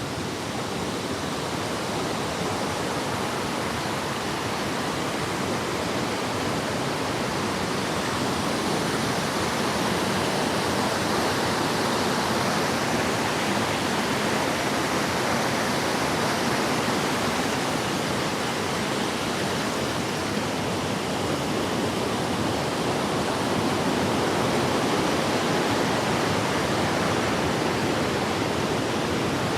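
Waterfall: a steady, dense rush of falling water that holds level throughout.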